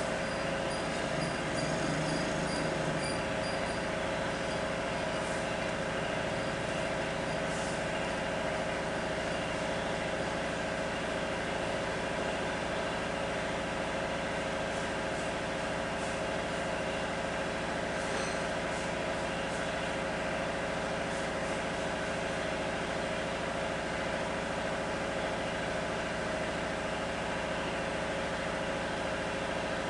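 A steady mechanical hum from a running motor or engine, even in level throughout, with a short run of faint high chirps in the first few seconds.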